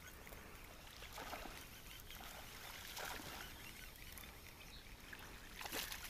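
Faint water sounds: a few soft splashes over trickling creek water as a hooked bass is brought in.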